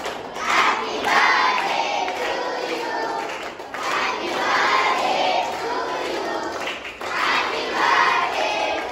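A group of boys singing together in unison, their voices filling the room, with some hand clapping.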